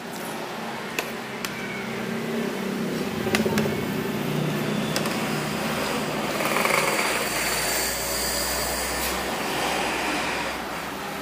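Steady mechanical hum and roadside street noise, with a few sharp clicks in the first five seconds and a low rumble of passing traffic about seven seconds in.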